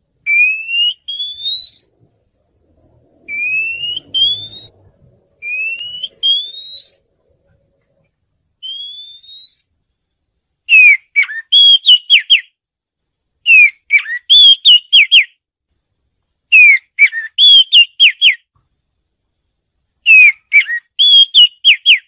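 Oriental magpie-robin singing: four clear whistled phrases that rise in pitch, then, about halfway through, four bursts of quick, sharp, varied notes a few seconds apart.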